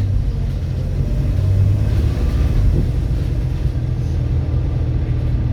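Volvo B7RLE bus's six-cylinder diesel engine running with a steady low rumble that rises and falls slightly, from an engine the uploader says is knocking.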